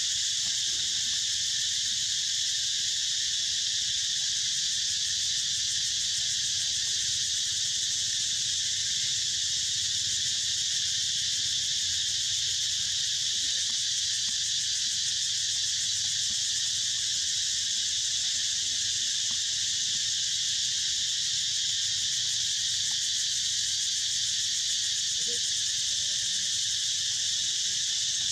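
Steady insect chorus from the surrounding forest: a dense, high-pitched buzzing that holds at an even level without a break.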